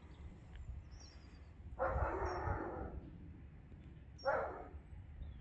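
A dog barking twice, once about two seconds in and again more briefly near the end, with faint high bird chirps.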